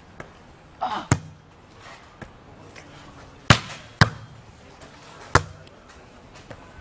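Sharp smacks of a volleyball being hit in play: four loud ones, about a second in, twice close together around three and a half and four seconds, and again past five seconds, with a few fainter taps between.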